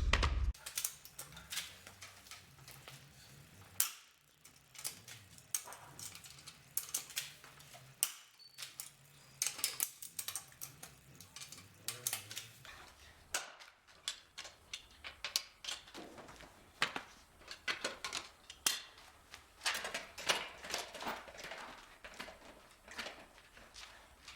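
Irregular sharp metallic clicks and clinks from a hand wrench working on a car's wheel bolts as they are loosened by hand, some coming in quick runs.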